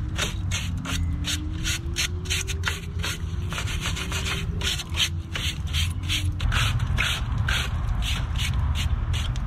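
Rust being scrubbed off the steel of the truck's front axle by hand, in quick rasping strokes about three or four a second.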